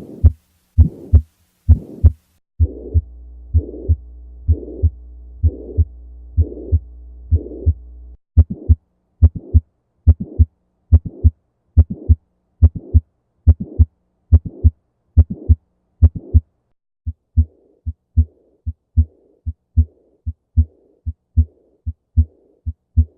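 Recorded heart sounds: a regular heartbeat with a heart murmur, in several spliced recordings that change about two and a half, eight and sixteen seconds in. A steady low hum lies under the beats from about two and a half to eight seconds in, and in the last recording a hazy whooshing fills the gaps between the beats.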